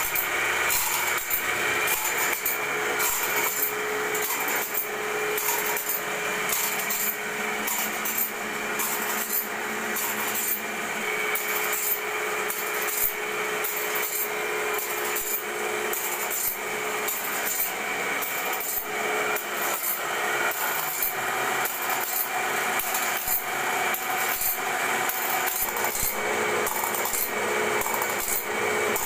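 Automatic band-saw blade sharpening machine running: its grinding wheel grinds the teeth one after another in a regular beat of rasping strokes over a steady motor hum.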